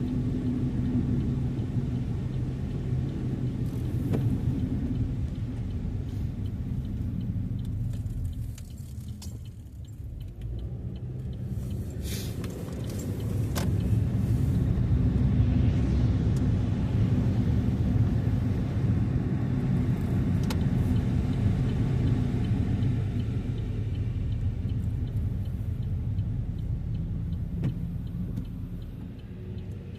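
Car driving on a snowy road, heard from inside the cabin: a steady low road and engine rumble that eases about nine seconds in and grows louder again a few seconds later, with a few faint clicks.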